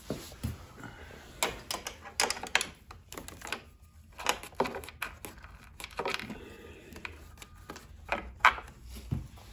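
Irregular metallic clicks and clinks of a wrench and hands working a 9/16-inch bolt out of a Harley-Davidson Electra Glide's front end, the strokes coming in short clusters with brief gaps.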